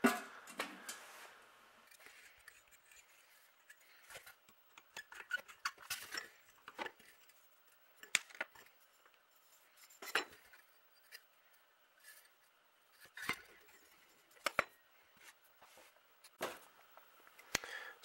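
Light metallic clicks and clinks of small metal horn parts and hand tools being handled, spaced irregularly, some ringing briefly.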